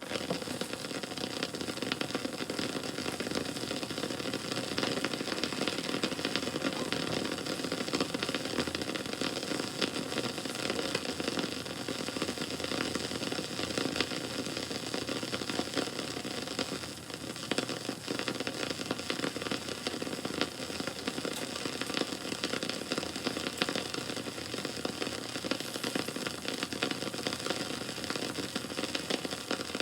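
Campfire burning, a dense steady crackle of many small irregular pops and snaps.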